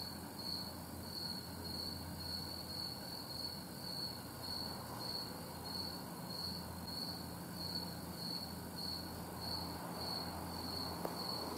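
A cricket chirping steadily, a high chirp repeating about twice a second.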